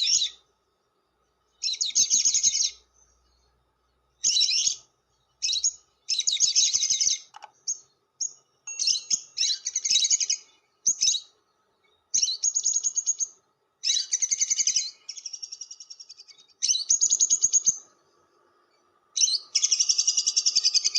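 Lovebird giving shrill, rapid chattering calls (ngekek) in about a dozen bursts, each lasting a second or so, with short pauses between them.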